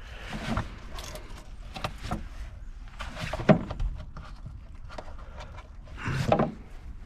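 Hands working at the car's plastic air filter housing and filter: scattered clicks, knocks and rustles. The loudest is a sharp knock about three and a half seconds in, with a longer rustling scrape near the end.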